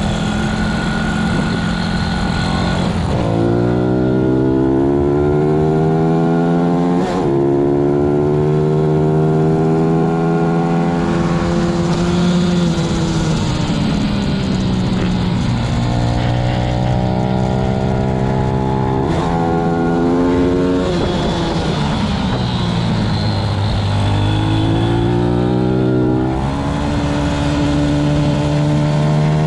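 Pit bike's single-cylinder four-stroke engine heard from on board at racing speed, its pitch climbing under throttle and dropping sharply at each gear change. Around the corners the revs fall away as the throttle eases off, then build again.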